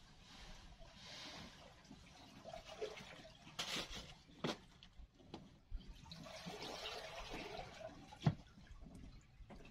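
Water splashing and trickling in two spells, with a few sharp knocks between them and one louder knock near the end.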